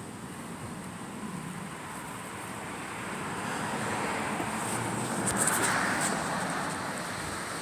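Strong wind rushing, swelling into a gust about five seconds in and then easing off.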